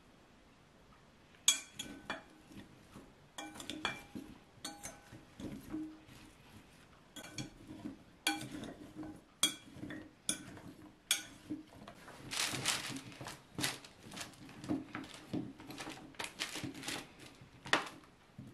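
A metal spoon clinking and knocking against a glass bowl while mixing cut mushrooms and sweet potato pieces, starting about a second and a half in and repeating roughly once a second. Partway through there is a longer rustle of the vegetable pieces being tossed together.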